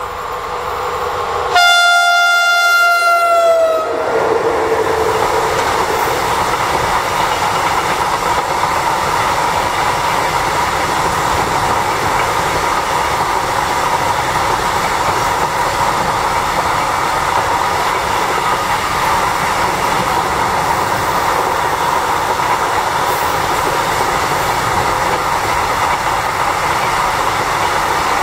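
Locomotive horn sounding one long warning blast (the Polish Rp1 'attention' signal) for about two seconds, its pitch dropping as the locomotive passes. Then a long container freight train rolls by with a steady rumble of wheels and wagons.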